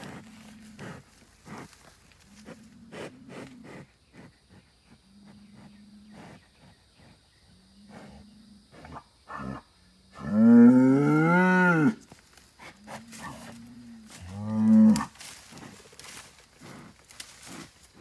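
Angry young Angus bull bellowing: low, short grunts every couple of seconds, then a loud, long bellow that rises in pitch about ten seconds in and a shorter one near fifteen seconds. Its hooves scrape and knock at the dirt between calls as it paws the ground.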